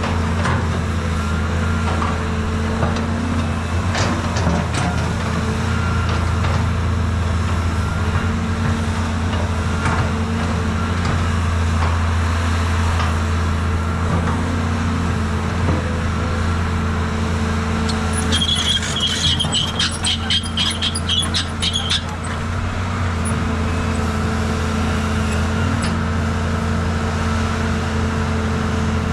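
Caterpillar 320 hydraulic excavator's diesel engine running steadily under load as it digs. About two-thirds of the way through, a four-second burst of rapid clicking with a high squeal rises over it.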